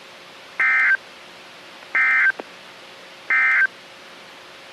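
Three short bursts of EAS (SAME) end-of-message data tones from a NOAA Weather Radio broadcast, each about a third of a second long and about 1.4 s apart, over steady radio hiss. The three bursts signal the end of the alert message.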